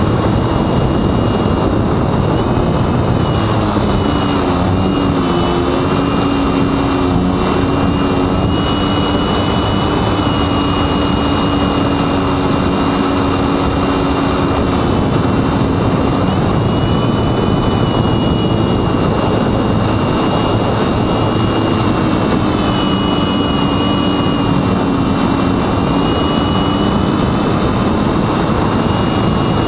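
Small brushless electric motor (Sunnysky X2220) spinning a 9x7.5 propeller on a Mini Talon model plane in flight: a buzzing whine that rises and falls in pitch with throttle changes, under a constant loud rush of wind noise.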